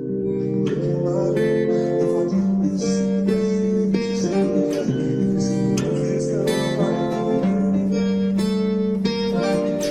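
Background music: an acoustic guitar playing sustained chords in an instrumental passage of a song.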